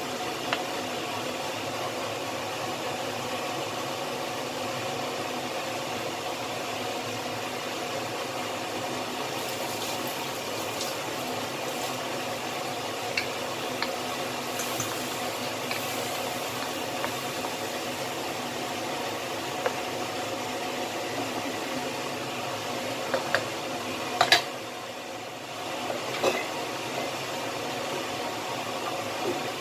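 Chicken wings simmering in a wok of bubbling chilli broth, a steady bubbling hiss. In the middle and again later there are a few scrapes and knocks of a wooden spatula stirring against the wok, the loudest about 24 seconds in.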